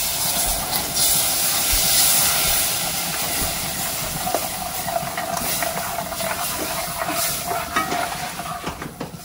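Cold yogurt poured into a hot pan of oil-browned gram flour, hissing and sizzling as it hits, the hiss loudest in the first couple of seconds and slowly dying down as a silicone spatula stirs it in.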